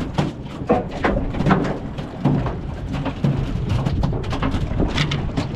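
Rain and wind on the microphone aboard a small boat: a steady low rumble broken by many irregular sharp crackles.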